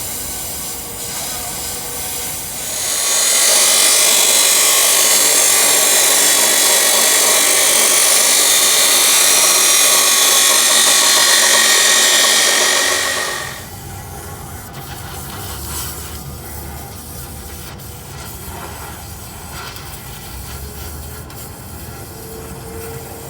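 Power grinder working on the steel exhaust pipe for about ten seconds: a loud, steady, hissing grind that starts about three seconds in and stops abruptly, leaving a quieter low workshop rumble.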